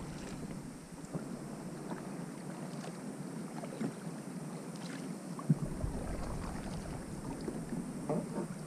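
Kayak paddle strokes: the blades dip and splash with water dripping off them, over wind on the microphone. There is one sharp knock about five and a half seconds in.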